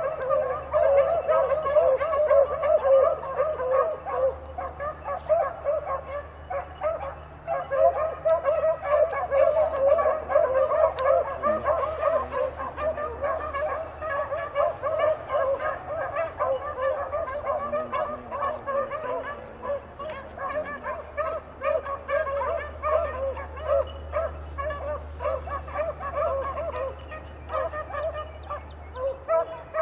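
A pack of beagles baying in chorus on a rabbit's track, several hounds calling over one another without a break: the sound of the dogs running the rabbit.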